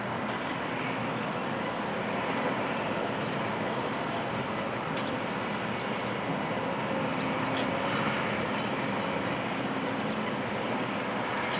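Steady noise of vehicles and construction machinery, with a faint low engine tone rising a little near the middle and a few small clicks.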